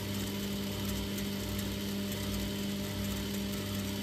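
Homemade lathe running at low spindle speed with a steady mechanical hum while cutting an M12×1 thread.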